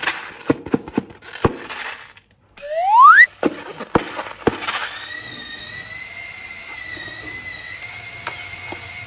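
Several light clicks and taps, then a short, loud rising squeak about three seconds in. From about five seconds in, a steady high whistling squeal holds one pitch.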